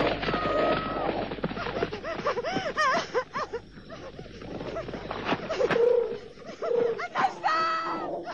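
Jungle animal calls on a cartoon soundtrack: overlapping hoots, shrieks and chattering cries that rise and fall, with a long held wailing cry near the end.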